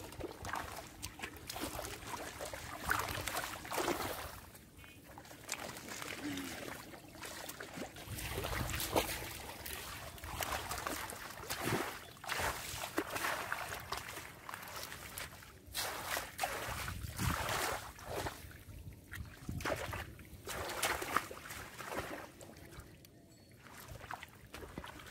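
Shallow muddy water sloshing and splashing in irregular bursts as legs and hands move through it, feeling for fish among the weeds.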